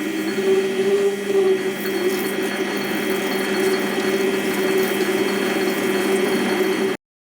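Metal lathe running with a shop-made parting-off tool cutting into the workpiece: a steady, rough cutting noise over a strong hum, which cuts off suddenly near the end.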